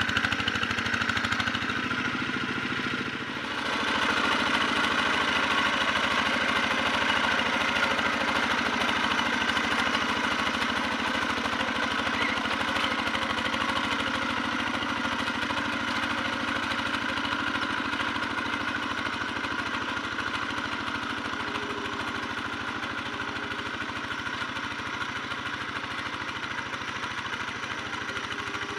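Single-cylinder diesel engine of a Quick G1000 two-wheel hand tractor running steadily under load as it pulls a plough through a wet rice paddy. It dips briefly about three seconds in, then grows slowly fainter as the tractor moves away.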